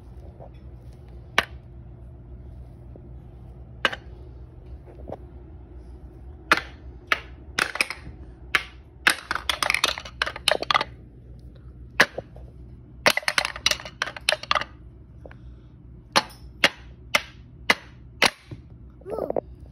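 Wooden pound-a-ball toy: a wooden mallet knocking the balls through the holes and the balls clacking down the wooden ramps. Single sharp knocks at first, then quick runs of clattering knocks.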